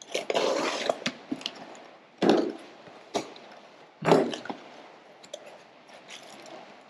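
Cardboard box flaps and packing material crinkling and scraping as a small box is unpacked by hand. Three louder rustles come at the start, about two seconds in and about four seconds in, with scattered small clicks and taps between them.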